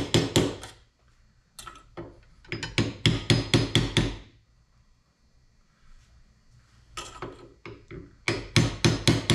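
A hammer gently tapping the top of a long metal rod (a drift) to drive a part down until it is seated in an outboard lower unit. The taps are quick, about five a second, in several short runs with pauses between.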